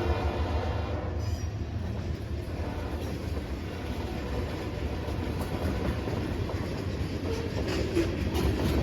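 CSX freight train rolling past: a steady rumble of freight cars on the rails, with faint irregular clicks of the wheels.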